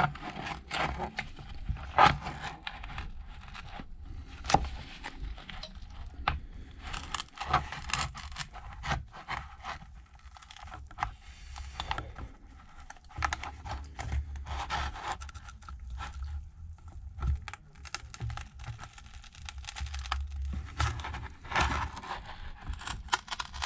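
Pry tool scraping under an iPad Pro battery as it is worked loose from its alcohol-softened adhesive, with irregular scrapes, clicks and crackling of the adhesive giving way.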